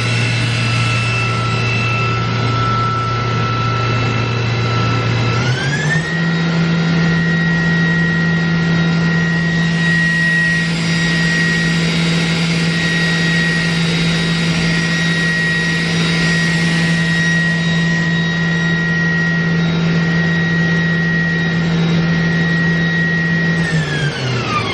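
Spindle of a Mazak Variaxis 630-5X machining center running with a steady whine. It steps up to a higher speed about six seconds in, holds there, then winds down near the end.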